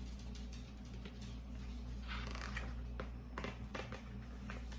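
Faint room tone with a steady low hum, a few soft clicks and a brief rustle about two seconds in.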